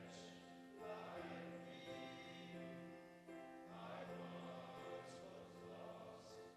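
Voices singing a slow song with instrumental accompaniment over a steady held low note, the sung notes changing every second or two.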